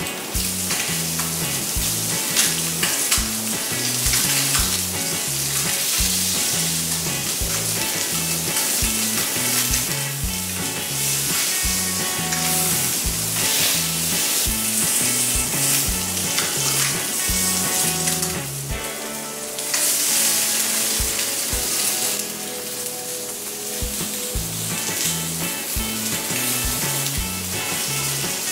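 Barramundi fillets sizzling steadily in a hot grill pan as they fry, with a dense, continuous hiss. A background music track with a steady beat plays underneath.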